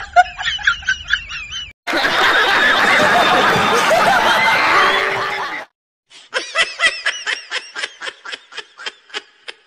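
Laughter dropped in as a comedy effect: a short snickering laugh, then a crowd of people laughing together for about four seconds, then one voice laughing in quick, evenly repeated 'ha-ha' bursts, about four a second.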